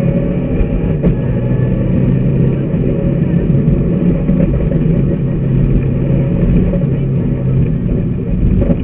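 Mitsubishi Lancer Evo IX rally car's turbocharged four-cylinder engine running hard at fairly steady revs, heard from inside the cabin.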